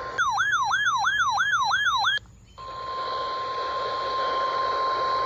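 A loud electronic warbling alert tone rising and falling about three times a second for two seconds, then a brief gap, then the steady single-pitched 1050 Hz warning alarm tone of NOAA Weather Radio, which signals that a warning message follows.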